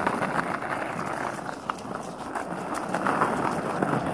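Skateboard wheels rolling steadily over a rough asphalt path scattered with leaves and grit, a continuous rumble with many small clicks.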